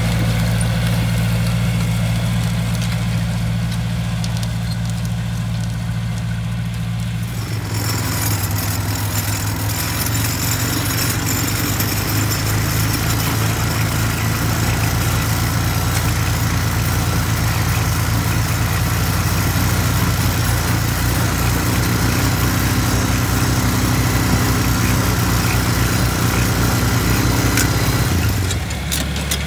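John Deere 3020 tractor's four-cylinder engine running steadily under load while it pulls a disc harrow through the field. About seven and a half seconds in, the sound turns rougher and noisier.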